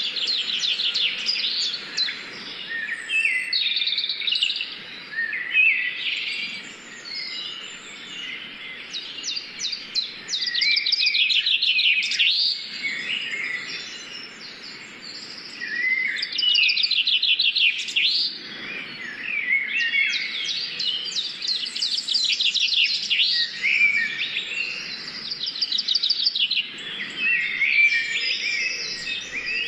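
Birdsong: several birds chirping and singing in rapid, overlapping trills, with short lulls now and then.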